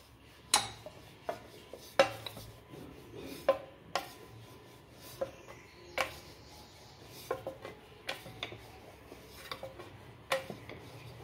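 Wooden rolling pin rolling a small disc of dough on a steel plate, clicking against the metal about every second or so, with soft rubbing as it rolls between the clicks.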